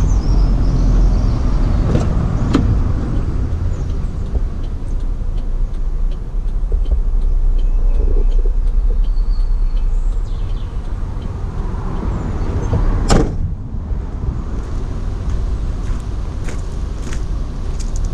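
Steady low rumble of outdoor vehicle noise, with a few short knocks about two seconds in and a sharp, louder knock about thirteen seconds in.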